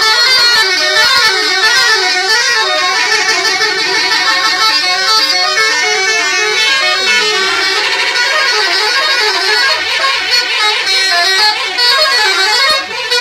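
Bus telolet horns, multi-tone horns playing a fast warbling melody, pitches stepping up and down without a break, with more than one tune sounding at once.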